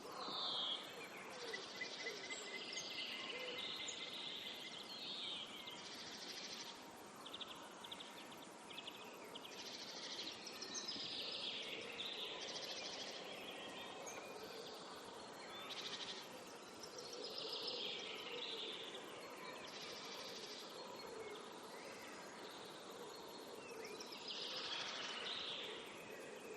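Several birds chirping and trilling in short, overlapping phrases, some as fast rattling runs, over a faint steady outdoor hiss.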